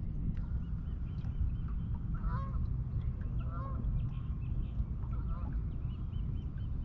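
Geese honking: a short run of honks about two seconds in and another a second later, over a steady low rumble of wind on the microphone.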